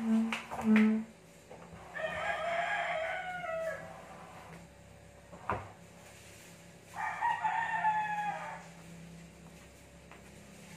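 A rooster crowing twice, each crow lasting a second or two, over a steady low hum. Near the start there are two short, loud, low squeaks, and a single sharp knock comes about halfway through.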